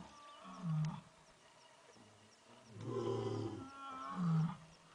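Male lion roaring in a series of low calls: a short one about half a second in, a longer, louder one around three seconds in, and a short one near the end.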